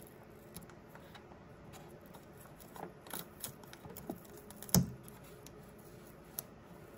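Faint, scattered clicks and rustles of fingers handling a strip of Teflon tape and pressing it onto the poop chute's blocker, with one sharper knock a little under five seconds in.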